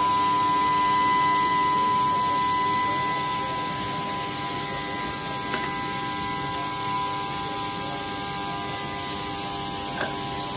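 Steady hum with a high whine held at one pitch, like workshop machinery or electrical equipment running, with a couple of faint knocks about five and a half and ten seconds in.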